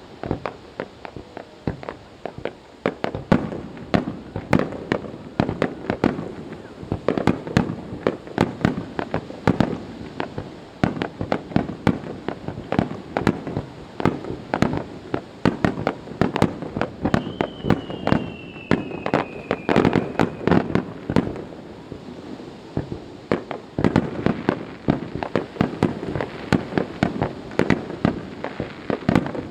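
Aerial fireworks shells bursting in a rapid barrage, many sharp bangs a second, continuous throughout. Just past halfway, a high whistle runs for about three seconds, falling slightly in pitch.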